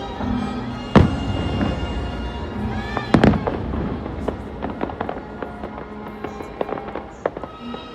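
Fireworks going off: a sharp boom about a second in, a double bang around three seconds in, then a run of smaller crackling pops. Music with sustained tones plays under them.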